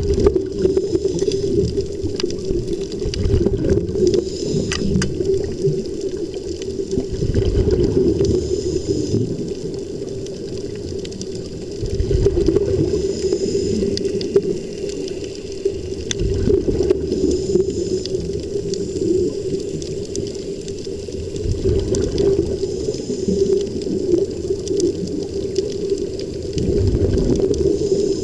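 Surface-fed air supply of an underwater-walking diving helmet: a steady rush of air with bubbling, and louder low gurgling surges every few seconds as air spills out as bubbles.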